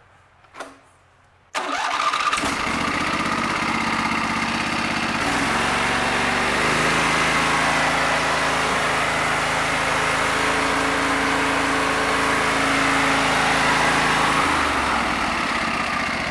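Briggs & Stratton vertical-shaft small engine on a log splitter being electric-started with the choke on: after a short quiet it catches about a second and a half in and runs steadily, its speed shifting a few seconds later and dropping near the end.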